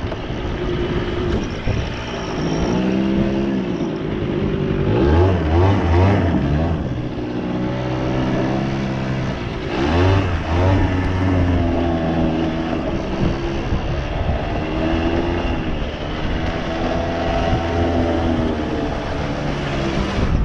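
Suzuki LT80 ATV's small two-stroke single-cylinder engine running under a varying throttle, its pitch rising and falling over and over as it revs up and eases off, with sharp surges about five and ten seconds in.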